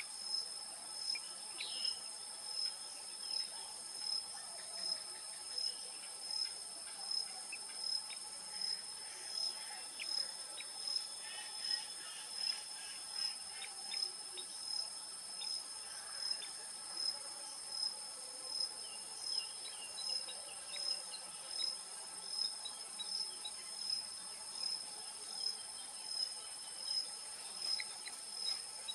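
Chorus of insects chirping, high-pitched and continuous, with a regular pulse a little more than once a second and a few faint short chirps scattered through it.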